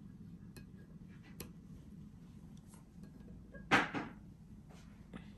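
Wooden chopsticks picking at simmered fish in a ceramic plate: a few faint clicks, then a brief, louder noise a little before four seconds in.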